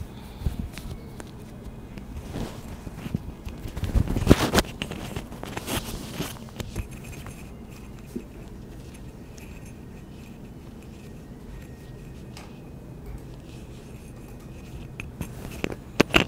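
Handling noise from a clip-on lapel microphone being fitted on a shirt front: fabric scrapes and knocks in the first seven seconds, the loudest about four seconds in. A quieter steady stretch follows, and a couple of sharp clicks come near the end.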